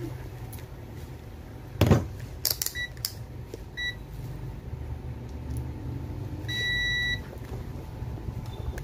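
Digital multimeter's continuity beeper: two short beeps, then one longer beep of about half a second, the tester signalling continuity through a small earphone speaker's coil. A few sharp knocks come before the beeps, the loudest about two seconds in.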